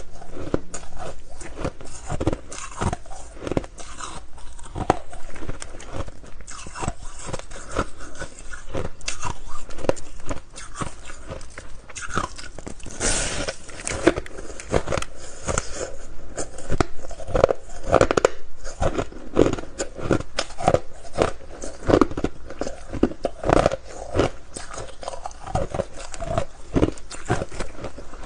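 Close-miked biting and crunching of a frosty block of purple flavoured ice: many irregular crisp crunches and chews follow one another throughout.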